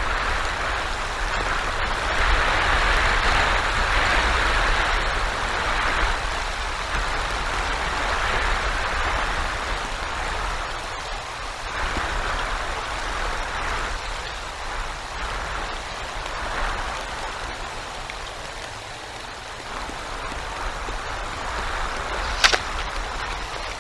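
Winter storm of heavy snow and icy rain heard on an outdoor nest-cam microphone: a steady rush that swells and eases, over a low rumble. A sharp click comes near the end.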